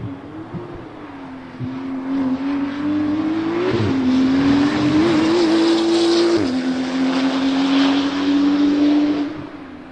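Porsche 991 GT2 RS test car's twin-turbo flat-six accelerating hard. Engine pitch climbs and drops back with upshifts about four and six and a half seconds in, getting louder as the car approaches and falling away near the end as it passes.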